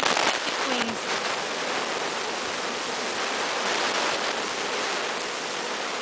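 A large honeybee swarm buzzing, a steady, even hiss-like hum.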